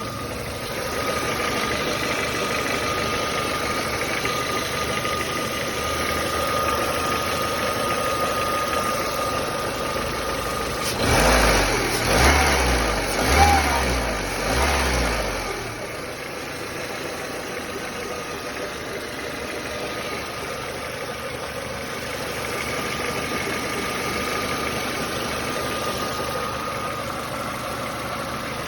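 Nissan Almera G15's 1.6-litre four-cylinder engine idling with a knock that the owner says comes only once the engine has warmed up a little, never from fully cold. About eleven seconds in, the engine revs up briefly four times over about four seconds, then settles back to idle.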